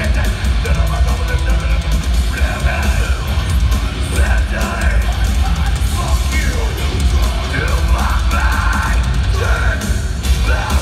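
Live heavy metal band playing at full volume: distorted guitars, bass and drums with a heavy booming low end, and shouted, screamed vocals over the top.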